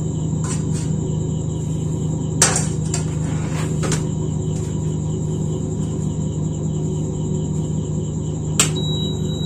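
Steady low hum with a few knocks of a steel pot being handled and set on the glass top of a Prestige induction cooktop, the loudest about two and a half seconds in. Near the end the cooktop gives one high beep of about a second as power is applied. This is the unit whose display lights and then goes out.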